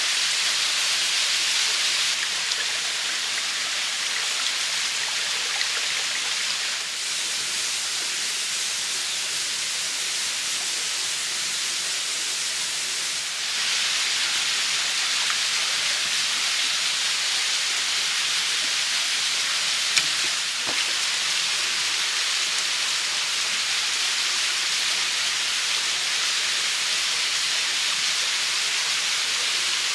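Shallow forest stream running over rocks, a steady hiss of moving water, with a single sharp click partway through.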